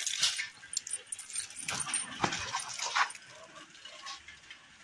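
A dog making short, agitated sounds while pulling on its chain leash, the chain rattling in short bursts. The dog is worked up at another dog ahead, which the owner calls aggressive.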